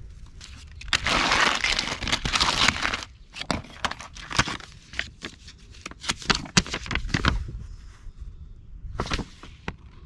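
Plastic packaging and a paper instruction sheet crinkling and rustling as drip-irrigation kit parts are handled, with a long stretch of rustling about a second in and scattered clicks and taps after it.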